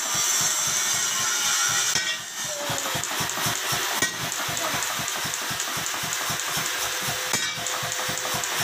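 A 50 kg pneumatic power hammer running, its ram striking in a rapid, even rhythm of several blows a second.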